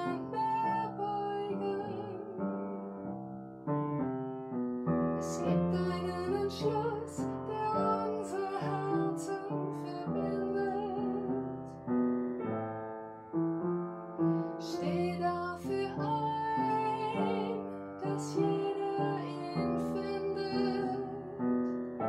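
An upright piano playing a slow accompaniment while a woman sings over it, her held notes wavering with vibrato.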